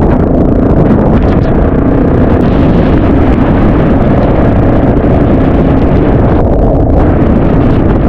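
Enduro motorcycle riding along, its engine running under a loud, steady rumble of wind on the microphone.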